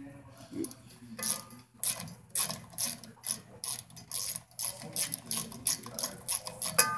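Hand ratchet wrench clicking in quick back-and-forth strokes, about two or three a second, as the socket loosens the bolts on the rear U-joint at the differential of a Chevy S10's drive shaft.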